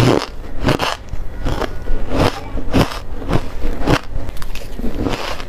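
A person biting and chewing shaved ice close to the microphone. The squeaky, crunchy crunches come about twice a second.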